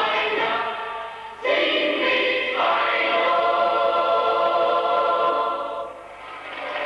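A small group of women's and children's voices singing together in long held notes, the pitch stepping up about two and a half seconds in. The singing dips briefly twice, once near the start and once near the end.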